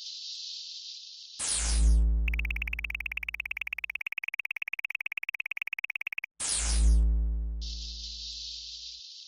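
Electronic sound effects made for a cat game: a steady high hiss, then a falling synth sweep over a deep bass boom, then a rapidly pulsing high beep for about four seconds. A second sweep and boom follows, and the hiss comes back near the end.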